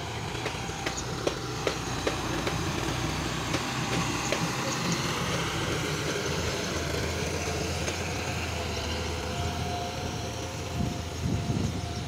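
Diesel engine of a John Deere farm tractor running steadily while its front dozer blade pushes and spreads crushed-stone aggregate, with scattered sharp clicks and crunching of the stones. There is a louder burst of rattling near the end.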